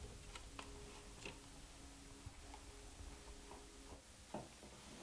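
Near silence: faint room tone with a low steady hum and a few scattered small clicks.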